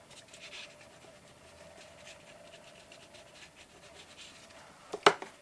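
Faint scratching of a blue water-soluble wax pastel (Neocolor II) being rubbed on paper, then one sharp click about five seconds in.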